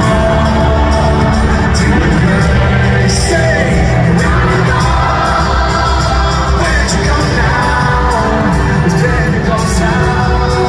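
Loud live rock band with a man singing over it through an arena sound system, with heavy, steady bass.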